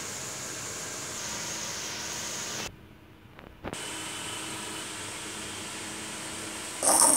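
Steady background hiss, cut off briefly for about a second around three seconds in, then a sudden loud burst of sound right at the end.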